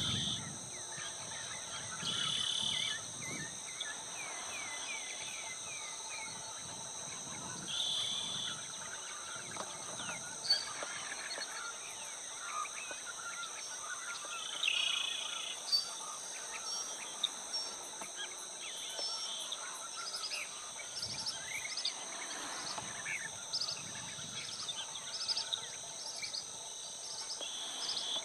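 Steady, high-pitched insect chorus, with short bird chirps and calls scattered over it and a run of quick repeated chirps near the end.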